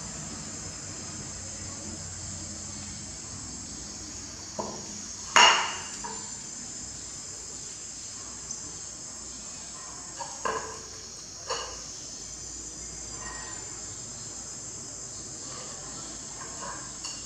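A plate knocking and scraping on a tiled floor as a young monkey shoves it about: one sharp clatter about five seconds in and a few softer knocks later. Under it runs a steady high chorus of insects.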